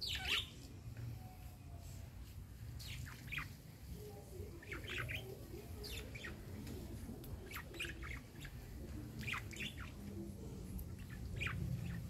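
Caged budgerigars chirping in short, scattered calls, a few every couple of seconds, the loudest at the very beginning, over a low steady rumble.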